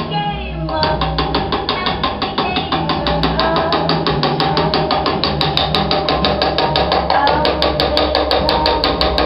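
Small hammer tapping a hand graver against a machete blade in a quick, even rhythm of about six taps a second, cutting a hand engraving into the metal. Background music plays throughout.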